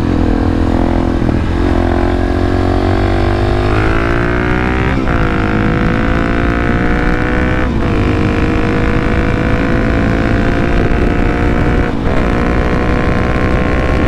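Suzuki DR-Z400SM's single-cylinder four-stroke engine through an FMF PowerCore 4 exhaust, under way on the road. It holds a steady pitch, then accelerates, and the pitch drops suddenly at three upshifts, about 5, 8 and 12 seconds in.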